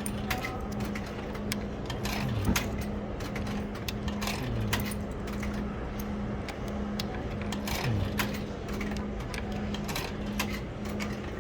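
Quarters being fed one at a time into a vending machine's coin slot, clicking and clinking as each drops through the coin mechanism, over a steady low hum.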